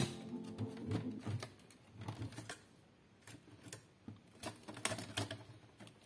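Irregular clicks and knocks of a Dell OptiPlex 790 desktop computer case being handled and its cover worked open, with faint background music under the first part.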